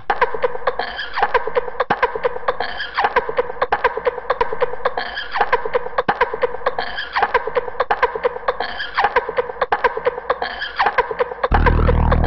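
Laughter-like sounds repeating in a regular loop about every two seconds over fast rhythmic clicking, in the manner of an edited soundtrack. Near the end a deeper, steady music track cuts in abruptly.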